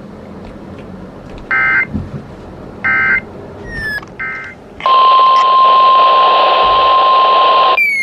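Three short bursts of EAS SAME header data tones, about a second apart, followed by the NOAA Weather Radio 1050 Hz warning alarm tone held steady for about three seconds over radio hiss. Together they are the header and attention signal that open a new weather warning broadcast.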